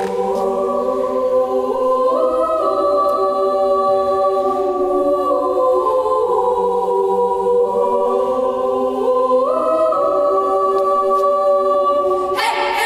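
Girls' choir singing a cappella: held chords that move from one to the next every second or two.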